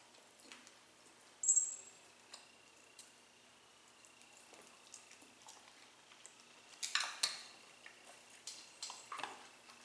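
Light clinks and clicks of eating utensils against dishes, scattered over quiet room tone. There is a short high ringing clink about a second and a half in, and a cluster of louder clatters around seven seconds.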